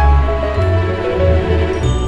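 Background music: a melody of held notes over a steady low bass.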